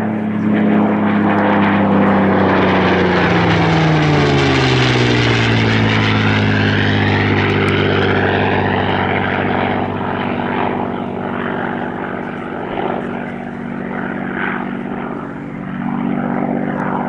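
Supermarine Spitfire PR XI's Rolls-Royce Merlin V12 engine running at display power as the aircraft flies past. The engine note drops in pitch over a few seconds as it passes, then carries on steadily, a little quieter.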